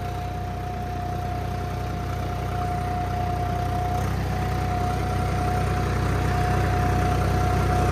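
Swaraj 855 4x4 tractor's three-cylinder diesel engine running steadily at about 1200 RPM while pulling an 11-tine cultivator, holding its speed without bogging down under the load. A steady whine rides over the engine note, and the sound grows a little louder toward the end.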